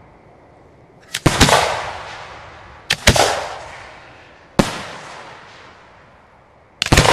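Fireworks shells going off: four loud bangs about two seconds apart, the first, second and last doubled, each trailing off in a long rolling echo.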